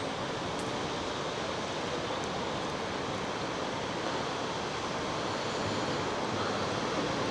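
Steady rushing noise of open air, even throughout with no distinct events.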